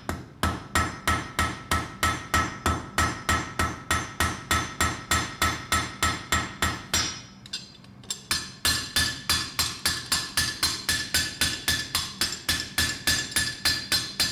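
Blacksmith's hand hammer striking a hot metal pendant in quick, even blows, about three or four a second, each with a metallic ring. The hammering stops for about a second near the middle, then resumes with a higher-pitched ring.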